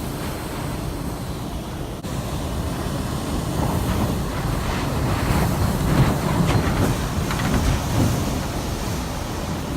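Hurricane wind blowing in strong gusts, a deep rumbling rush that swells to its loudest around the middle and eases slightly near the end, with a brief break about two seconds in.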